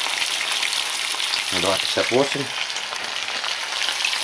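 Pieces of burbot frying in hot oil in a frying pan: a steady sizzle and crackle. A brief low vocal hum comes a little before halfway.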